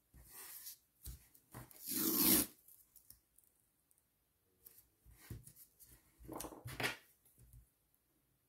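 Washi tape being peeled off its roll and smoothed onto planner paper: several short peeling and rustling strokes, the loudest about two seconds in and another around seven seconds.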